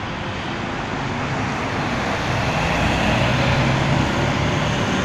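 Single-deck diesel bus driving round a roundabout and pulling away, its engine note growing louder from about a second in, over steady road traffic noise.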